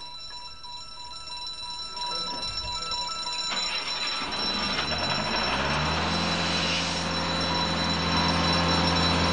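Small portable petrol engine running up: a rising hiss from about three and a half seconds in, then a low drone that climbs briefly in pitch and settles to a steady run.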